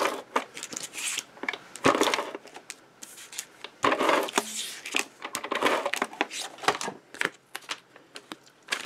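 Adhesive tape runner drawn across a paper panel in several short strokes, with light clicks and paper handling between them.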